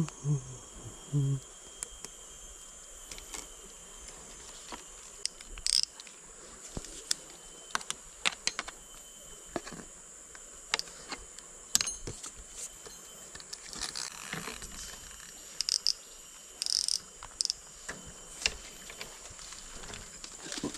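Steady high-pitched buzzing of a forest insect chorus, with scattered clicks and short rustles of handling and movement through dry leaves.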